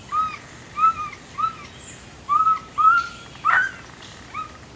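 An animal giving a series of short, arching calls, about seven, irregularly spaced, with a sharper, louder call about three and a half seconds in.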